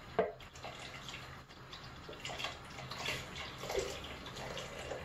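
Liquid flan mixture poured slowly in a thin stream from a jug into a steel pot of milk, trickling and dripping, with a few soft clicks from the spoon and jug.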